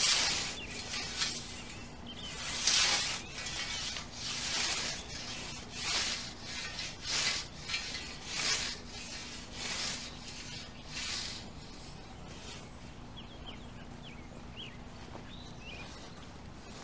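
Scythe blade swishing through long lawn grass as it mows, about ten hissing strokes, one every second or so, stopping about eleven seconds in.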